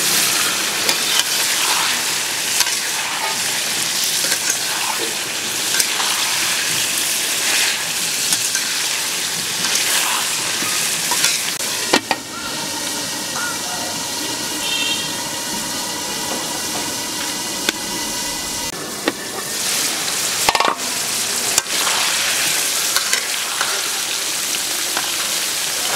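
Cucumber chunks sizzling as they fry in oil in an aluminium wok (karai), with scattered clinks and scrapes of a metal spatula stirring against the pan and a sharp clank of the pan lid about twelve seconds in.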